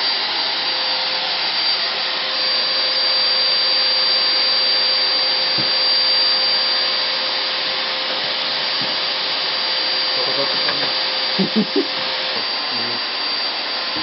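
Electric blower motor running steadily, a hair-dryer-like rush of air with a thin high whine; a lower hum in it cuts off about twelve seconds in. Three brief low bumps sound just before that.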